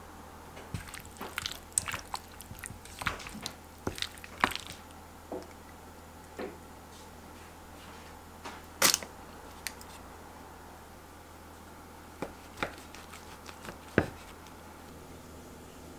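Kitchen utensil sounds: a wooden spoon tapping and scraping in a stainless steel bowl as it mixes and scoops a soft avocado, orange and yogurt filling, then spreading it on bread, over a low steady hum. Near the end a knife cuts through the sandwich down onto a wooden board with a sharp tap.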